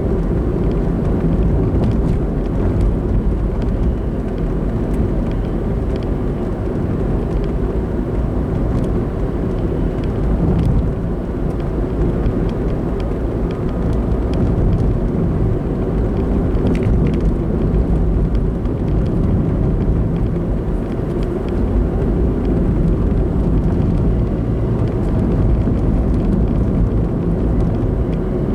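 Car on the move heard from inside the cabin: a steady low rumble of tyres on the road and the engine.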